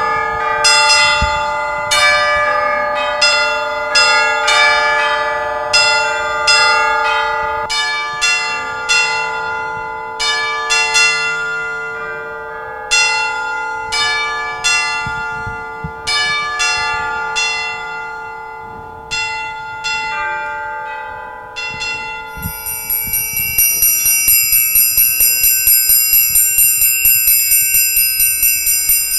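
Bell-like struck metal percussion: single notes struck one after another, each left to ring on and overlap the next. About 22 seconds in, this gives way to a high metallic ringing pulsing evenly about three times a second, a triangle being beaten.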